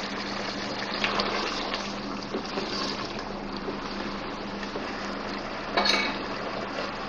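Mutton curry simmering in an open pot with a steady hiss while it is stirred with a wooden spatula; a sharp clatter of the spatula against the pot just before six seconds in.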